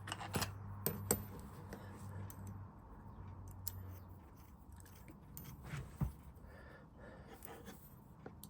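Light metallic clicks and taps from small steel parts being handled as a 5 mm countersunk screw is fitted into a tool height gauge. A faint low hum fades out about four seconds in.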